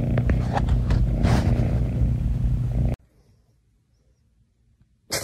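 A cat purring loudly right against the microphone, a deep steady rumble that cuts off suddenly about three seconds in.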